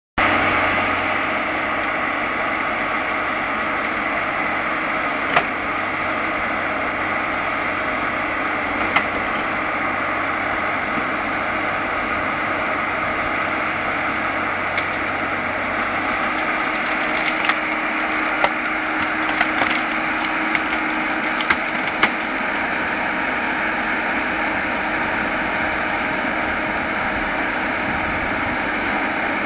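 Timberjack harvester's diesel engine and hydraulics running steadily under load, with sharp cracks and snaps of wood as the harvester head grips and breaks stems: a couple of single cracks, then a quick run of snapping around the middle.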